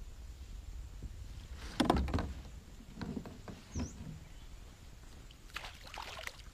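A hooked Hampala barb splashing and thrashing at the surface beside a kayak as it is brought to the landing net, with knocks against the boat. The loudest burst of knocks and splashing comes about two seconds in, and another splashing burst comes near the end.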